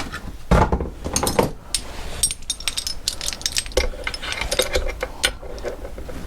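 Metal engine parts and hand tools knocking and clinking as a part is worked off its keyed shaft on a motorcycle engine, with a sharp knock about half a second in and a run of rattling clicks later.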